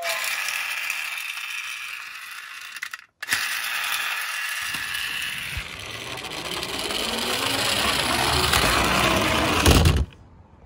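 Toy police car's gear mechanism whirring, first while it is wound in the hand and then as it runs along a wooden board, growing louder. Near the end there is a louder thump as the car runs into something and stops.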